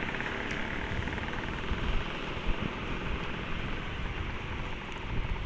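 Sea waves washing onto the beach in a steady rush, with wind buffeting the microphone in low, uneven rumbles.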